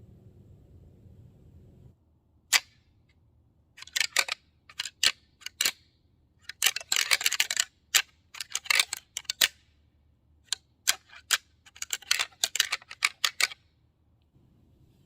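Deer rattling call worked by hand, clicking and clattering in bursts to imitate two bucks sparring. A single sharp clack comes about two and a half seconds in, followed by clusters of rapid clashes that stop shortly before the end.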